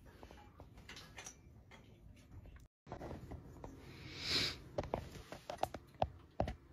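Quiet room with scattered light clicks and taps and a brief hiss, broken by a moment of dead silence about three seconds in; the clicks come faster and sharper near the end.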